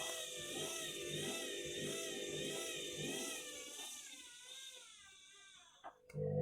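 Washing machine spinning an out-of-balance load of bedding: the motor and drum whine wavers up and down in pitch in a steady rhythm of about one and a half swings a second as the drum wobbles. The sound dies away over the last two seconds, followed by a click and the start of music right at the end.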